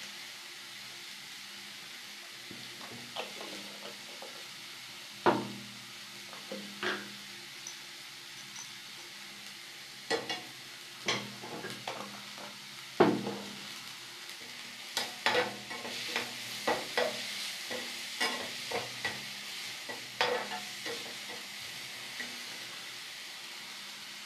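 Chopped capsicum and egg frying in a metal wok on a gas stove, a steady sizzle under sharp knocks and scrapes of a metal slotted spatula against the pan as the mixture is stirred. The strikes come scattered at first and thickest in the second half.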